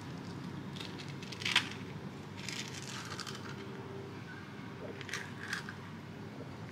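Metal spoon scraping and scooping ripe avocado flesh out of its skin: a few short, soft wet scrapes, the loudest about a second and a half in, over a low steady hum.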